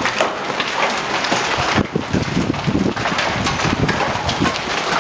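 Large hailstones, about golf-ball size, falling hard and striking hard surfaces in a dense, rapid run of impacts over a steady rush of falling hail.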